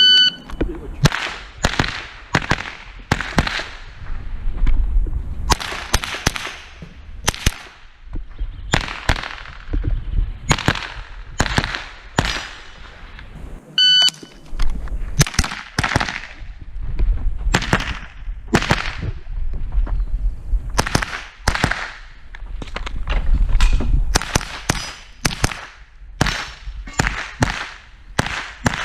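A shot timer's electronic start beep, then string after string of .22 LR shots from a SIG Sauer 522 SWAT semi-automatic carbine, fired in quick groups with short pauses between. A second timer beep sounds about halfway through.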